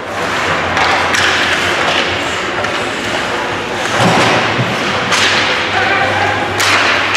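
Several sharp knocks and thuds during a game, ringing with echo in a large hall, over steady background crowd and room noise.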